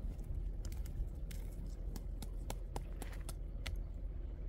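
Light, irregular clicks and taps of sticks and charred wood being handled and set down at a small campfire on gravel, over a steady low rumble.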